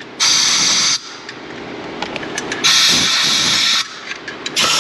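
Two blasts of hissing compressed air from an air blowgun, each about a second long, blowing debris off freshly cleaned exhaust mating surfaces, with a few light clicks between them.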